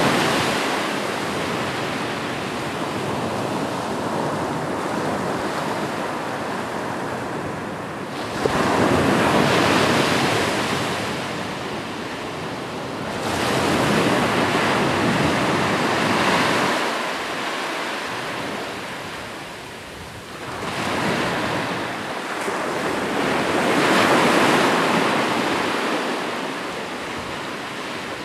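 Ocean surf: waves breaking and washing up the shore, swelling and fading in slow surges, with a sudden fresh break about eight seconds in.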